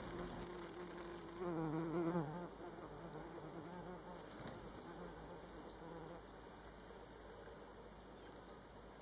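Bumblebee buzzing in flight, the hum wavering in pitch, loudest in the first two and a half seconds and then fainter. A run of short high chirps sounds in the background from about three seconds in.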